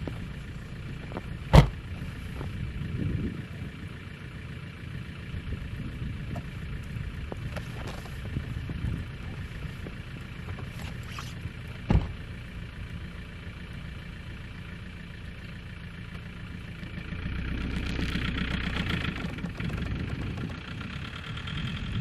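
SUV engine idling steadily, with two sharp knocks about a second and a half in and about twelve seconds in. Near the end the sound swells as the car moves off through the snow.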